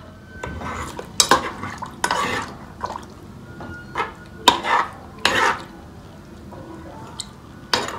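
A spoon stirring chunks of raw meat with a little water in a metal cooking pot, mixing the seasonings in. It makes irregular wet scrapes and clinks against the pot, the sharpest about one, two, four and a half and five seconds in.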